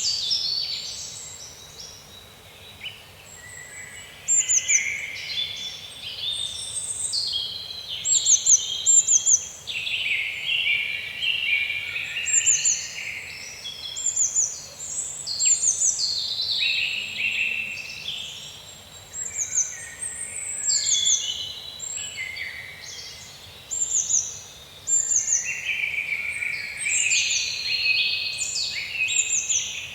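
Several songbirds chirping and singing at once: many short, quick, downward-sweeping notes and trills overlapping one another.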